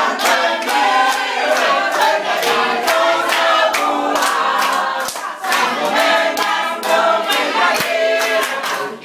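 A group of people singing together while clapping their hands in a steady rhythm, about three or four claps a second.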